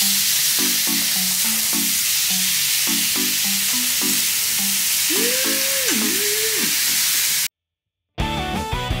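Samgyeopsal (pork belly) sizzling on a grill, a steady hiss, over a light tune of short low notes, with a gliding tone that rises and falls twice about five seconds in. The sound cuts out abruptly near the end, and an upbeat guitar-and-drums tune starts.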